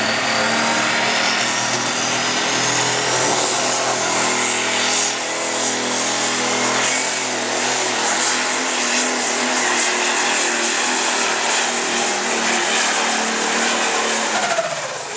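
Turbocharged diesel engine of a light pro stock pulling tractor running flat out under load while it drags the weight sled, with a high turbo whistle rising over the first few seconds. The level drops right at the end as the run finishes.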